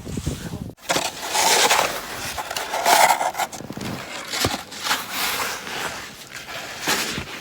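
Repeated scraping and crunching of snow being cleared, in irregular strokes about a second long.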